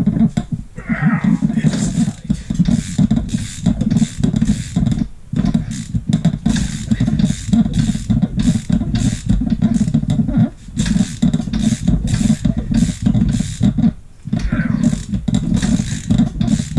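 Suzuki GN250 air-cooled single-cylinder engine being turned over rapidly by hand with a socket wrench on the crankshaft to pump up a compression gauge: a rhythmic chugging of about three strokes a second, with short pauses about five, ten and fourteen seconds in.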